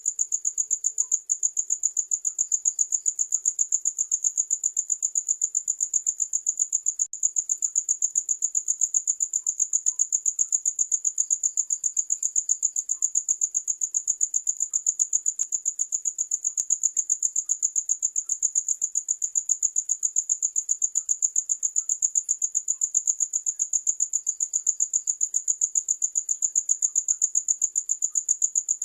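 Crickets chirping: a continuous high-pitched trill of rapid, even pulses that never pauses.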